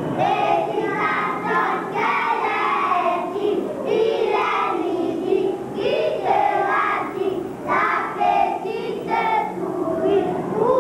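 A group of young children singing together in unison, a classroom song.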